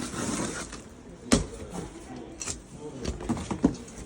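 Handling noises: a single sharp knock a little over a second in, then a run of lighter knocks and clicks, as a boxed part is moved about.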